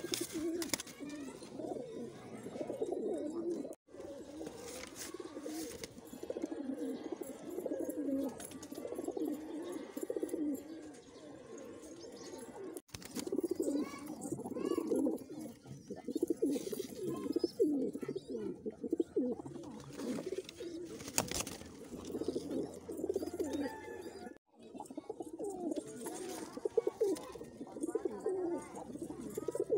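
Several domestic high-flying pigeons cooing continuously in overlapping low, warbling coos, broken by three brief silent gaps.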